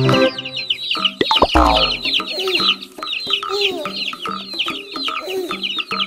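Chicks peeping over and over, many short high-pitched falling peeps a second, with a few lower calls mixed in. A couple of sharp knocks sound about a second and a half in.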